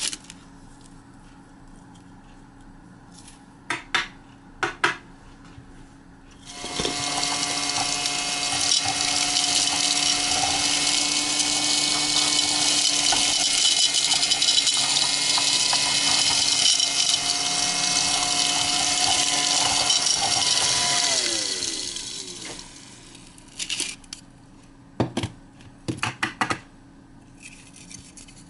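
Small battery-powered desktop mini vacuum cleaner switched on, its little motor running with a steady hiss and whine for about fifteen seconds, then switched off, the pitch falling as the motor spins down. A few light clicks of handling come before and after.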